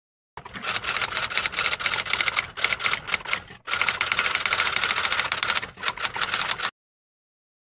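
Typewriter sound effect: rapid clacking keystrokes in two runs with a brief break about three and a half seconds in, then stopping abruptly.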